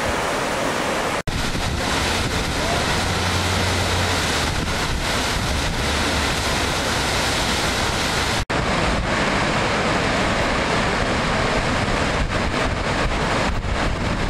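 Gibbon River white water and Gibbon Falls rushing loudly and steadily, with wind noise on the microphone. The sound cuts out for an instant about a second in and again about eight and a half seconds in.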